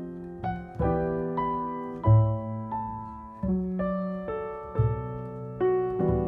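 Gentle background piano music, with notes and chords struck about every half second and each fading away.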